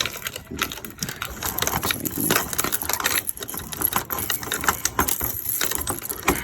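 A dense run of small metallic clicks and rattles as a vending machine's lock and keys are worked.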